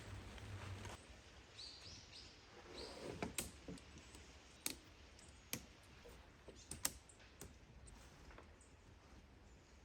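Faint bird chirps about two seconds in, then a handful of sharp, scattered clicks and taps.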